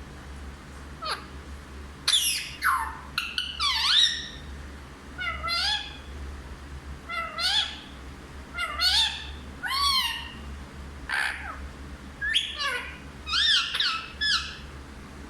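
Parrot giving a string of short squawking calls, each sweeping up and down in pitch, in quick clusters.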